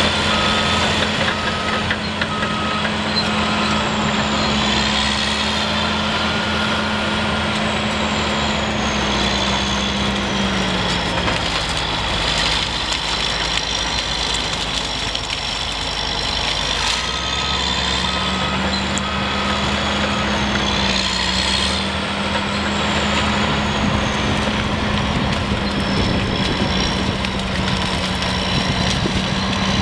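Caterpillar D8T bulldozer's diesel engine running steadily, with a high whine from the drivetrain and tracks rising and falling as it moves. Its reversing alarm beeps in two spells, near the start and again a little past halfway. The engine note sags for a few seconds before it comes back up.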